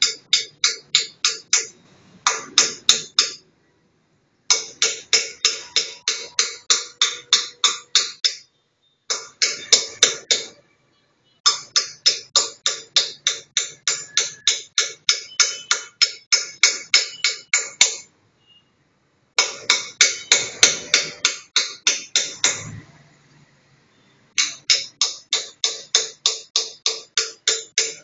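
Small hammer tapping a steel engraving chisel into granite: quick, even, ringing taps about four or five a second, in runs of a few seconds broken by short pauses.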